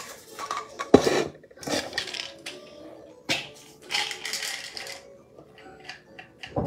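Plastic supplement bottles being handled: a sharp click about a second in, then several shorter knocks, clicks and rattles as the bottles are turned and swapped.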